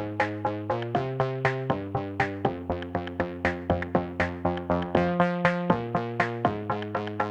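Background electronic music: synthesizer chords over a steady drum-machine beat of about four hits a second.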